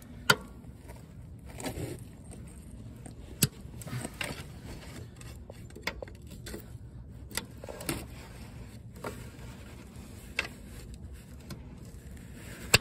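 Steel pry bar levering against the flywheel ring-gear teeth through the starter opening of a seized Ford 8N tractor engine, turning it a little at a time. Sharp metal clinks every couple of seconds as the bar catches and slips on the teeth, with scraping in between.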